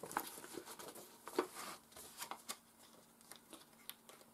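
A folded paper poster being handled and unfolded: light rustling and crinkling of paper with a few small clicks, busiest in the first two and a half seconds and quieter after.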